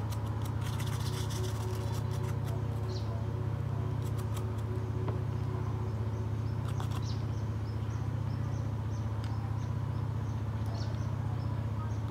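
Toothbrush bristles scrubbing a plastic phone housing in quick scratchy strokes for the first couple of seconds, then occasional light plastic clicks as the housing is handled, all over a steady low hum.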